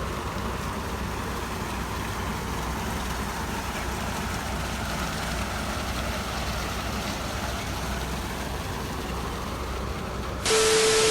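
A motorcycle engine idling steadily, with a low even rumble under a haze of noise. Near the end a steady tone with loud hiss cuts in suddenly.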